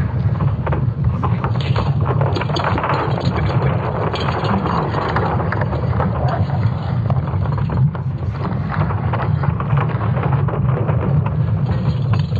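Sonification of Earth's magnetic field from ESA Swarm satellite data: a continuous low rumble with crackling over it, the sound of solar storms striking the magnetic field.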